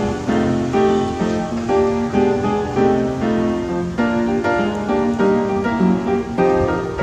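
Background music: a plucked guitar melody with piano, notes changing several times a second.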